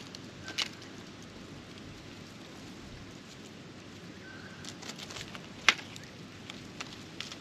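Australian magpies pecking and probing through dry straw and leaf litter: irregular sharp ticks and taps of beaks striking the ground, with one louder snap a little after the middle.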